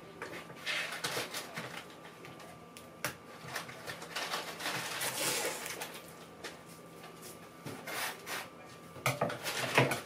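Wooden drawer dividers being unpacked and handled: scattered light clicks and knocks, with a stretch of rustling packaging a few seconds in and a quick run of sharper clicks near the end.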